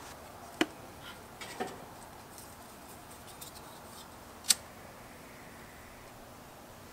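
A few light clicks and knocks of charcoal briquettes and a utility lighter being handled at a steel charcoal basket in a kettle grill. The sharpest click comes about four and a half seconds in, as the lighter is clicked to light a fire-starter cube.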